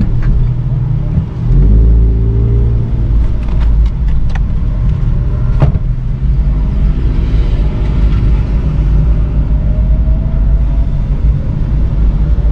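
Car engine and drivetrain heard onboard, a steady low rumble while creeping along at walking pace, with a few faint ticks in the middle. Near the end the engine note begins to rise as the car picks up speed.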